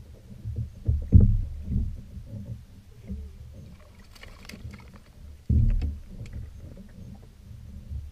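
Low knocks and thumps on a plastic kayak hull with water slapping against it, loudest about a second in and again about five and a half seconds in, while a small porgy is reeled in and lifted aboard. A brief crackly splash about four seconds in, as the fish reaches the surface beside the kayak.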